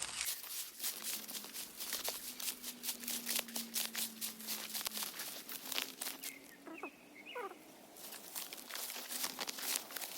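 Scattered small clicks and crinkling sounds, with a faint steady hum for a few seconds and a couple of short rising chirps about seven seconds in.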